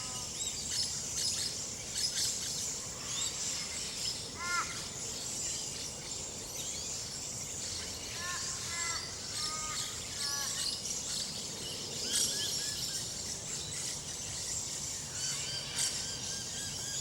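Chorus of wild Australian birds singing and calling, thought to include king parrots and rainbow lorikeets, with high chattering throughout. Groups of short, clear calls stand out about four and a half seconds in and again a few seconds later.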